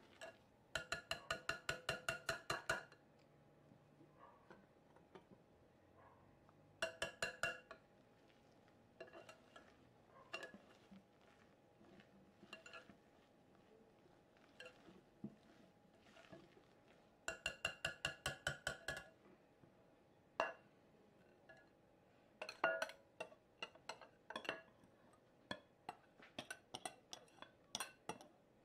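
Wire whisk beating thick pancake batter in a glass bowl, its wires clinking against the glass in quick runs of about six strokes a second, with the bowl ringing. Scattered single clinks fall between the runs, more of them near the end.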